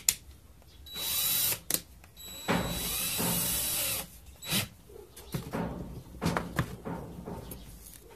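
DeWalt cordless drill motor run in two short bursts, about half a second and then about a second and a half, while the keyless chuck is held by hand to tighten it on a 1/8-inch bit. Scattered clicks and handling knocks follow.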